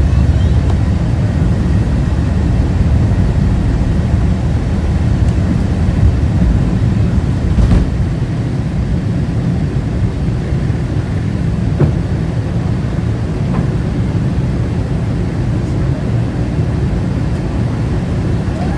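Steady low rumble inside the cabin of a Boeing 747-400, the engine and airflow noise heard from a passenger seat, with a couple of faint knocks in the cabin.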